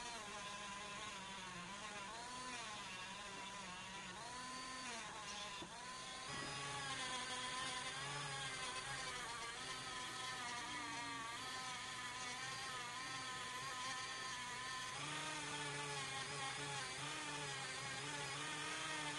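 Handheld rotary tool running at high speed with a small disc pressed against a metal ferrule ring. Its whine wavers in pitch as the load changes and gets louder about six seconds in.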